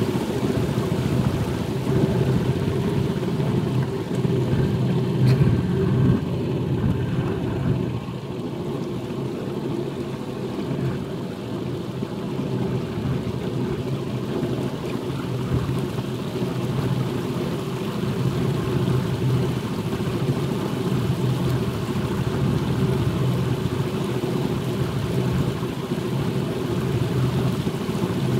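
Small boat's engine running steadily at an even pitch as the boat moves across open water.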